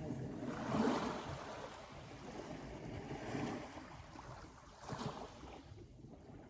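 Sea waves washing in, a steady rush that swells and fades about three times.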